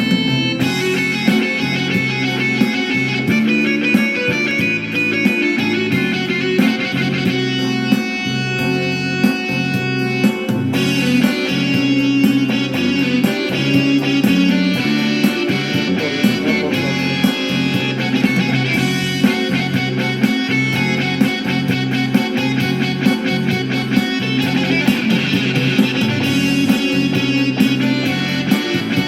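Yamaha PSR-E373 portable keyboard playing a guitar-like voice over a bass line with a steady beat.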